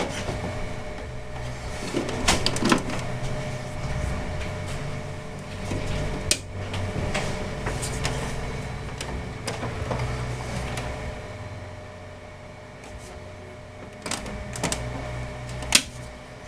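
Scattered clicks and knocks of hands working on a desktop computer's case and power-supply cables, over a steady low hum.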